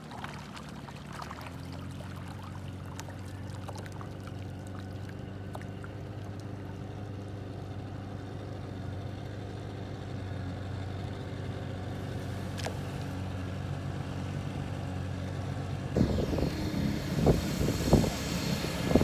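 40 hp Mariner outboard motor running steadily at low speed, its even note growing gradually louder as the boat comes in. About three seconds before the end it turns suddenly louder and closer, with irregular thumps.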